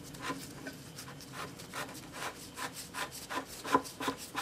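Large threaded nut on a 1970s floor jack's hydraulic cylinder being spun off by hand, its threads rasping in short repeated strokes, about two or three a second, a little louder in the second half.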